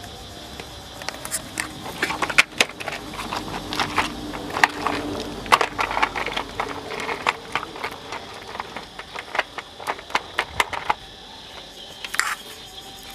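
Puppies scuffling on gravelly dirt around a plastic toy dump truck, making many irregular clicks, knocks and clatters that start about a second in and die away near the end. A faint steady high hum runs behind.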